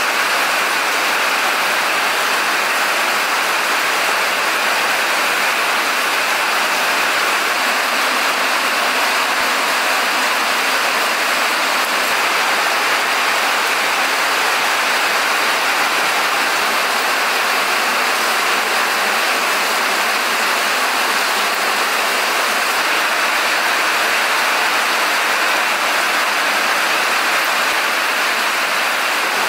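Steady rain falling, an even hiss that doesn't change.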